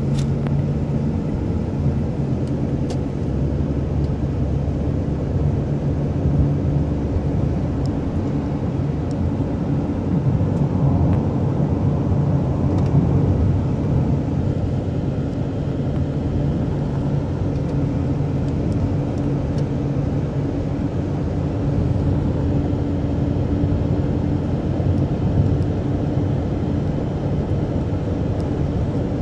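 Steady road and engine noise heard from inside a moving taxi's cabin: a low hum of engine and tyres at cruising speed.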